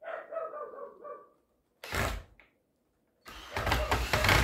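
Ryobi cordless drill driving a screw into wood to fix a metal hook: a short burst about two seconds in, then a longer, louder run near the end.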